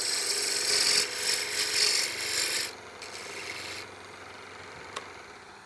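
A turning tool cutting a spinning walnut spindle on a wood lathe: a steady hiss of shavings peeling off, which stops about two and a half seconds in as the tool comes off the wood. A short, lighter cut follows, then only a faint steady background with a single click near the end.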